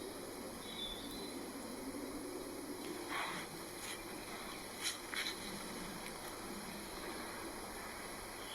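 A vintage tent being handled as it is pitched: a few short rustles, about three seconds in and twice around five seconds in, over a faint steady outdoor background.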